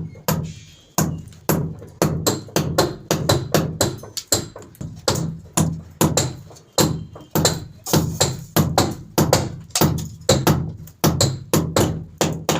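Repeated hammer blows, about two to three a second, each a sharp knock with a short ring after it.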